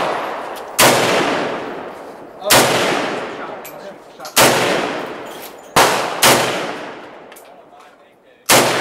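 AK-pattern rifle fired in six single shots one to two seconds apart, two of them in quick succession about two-thirds of the way through. Each shot is a sharp crack followed by a long fading echo.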